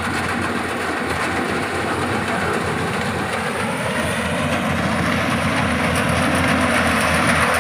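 Yanmar AW70GV combine harvester running under load while cutting rice, a steady engine drone with a dense clattering rattle from the machine, growing a little louder toward the end.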